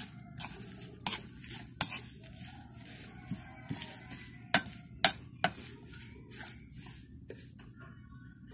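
A metal utensil stirring chopped wet malunggay leaves, onion and garlic in a ceramic plate: soft, repeated swishing, with several sharp clinks of the utensil against the plate.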